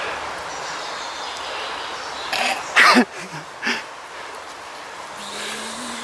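A person making vocal sound effects: a loud, noisy whoosh that falls in pitch about three seconds in, with smaller puffs around it, and a low, nearly steady hum near the end. Under it all is a steady rush that fits the nearby stream.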